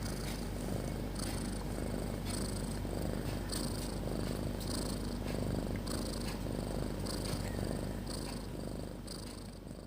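Sleeping cat snoring loudly: a continuous low rattle with a hiss that comes back every half second to second, fading away near the end.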